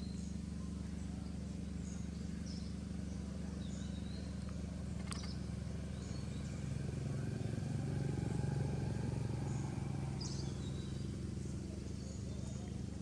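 A motor engine runs steadily, growing louder about seven seconds in and easing off after eleven, with short high chirps above it.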